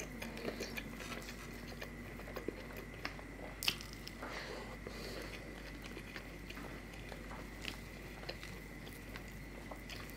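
Close-miked chewing and small wet mouth clicks of a man eating dosa and other South Indian food by hand, with crackles of crisp dosa being torn and a sharper click a little under four seconds in. A faint steady high-pitched whine sits underneath.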